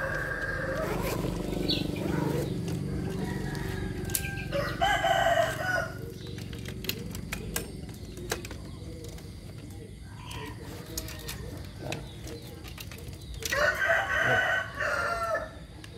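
A rooster crowing twice, once about five seconds in and again, longer, near the end, with scattered faint clicks between.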